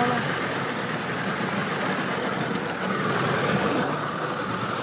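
Suzuki outboard motor running steadily as the small boat moves out over open water, mixed with the rush of water and air.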